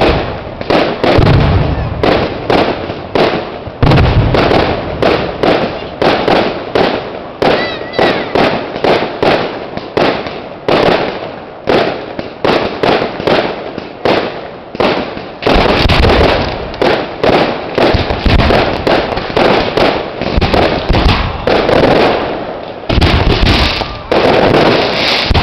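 Fireworks display: aerial shells and firecrackers going off in a rapid, near-continuous string of bangs and crackles, several a second. Heavier booms come in clusters about two-thirds of the way through and near the end.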